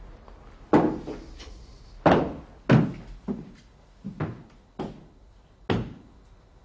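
Footsteps coming down a wooden staircase: about seven heavy steps at an uneven pace.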